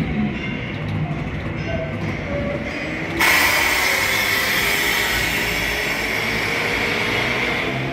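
Train and machinery sounds inside a railway-themed dark ride: rumbling and clattering mechanism noise. About three seconds in, a loud, steady hiss starts suddenly and holds until just before the end.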